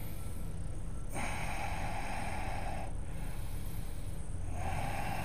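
A person breathing slowly and audibly through the nose, as in yoga breathing: two long breaths of about two seconds each, the second starting about four and a half seconds in. A steady low hum sits under them.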